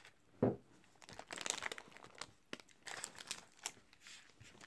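Foil snack wrapper being handled and peeled open, with irregular crinkling and crackling from about a second in. A short low thud about half a second in is the loudest moment.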